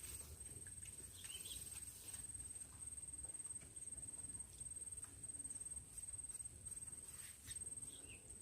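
Quiet outdoor ambience: a steady high-pitched whine over a low rumble, with a few faint clicks and short chirps.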